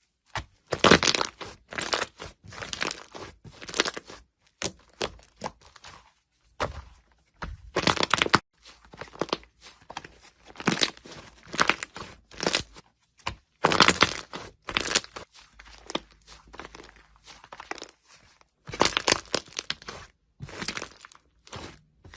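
Slime being squeezed and pressed by hand, giving a quick, irregular string of short, sudden sounds.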